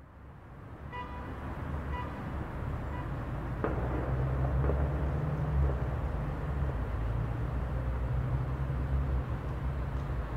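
City traffic ambience fading in: a steady low rumble of vehicles under a haze of street noise. Three faint beeps about a second apart sound in the first few seconds, and there is a single knock a little under four seconds in.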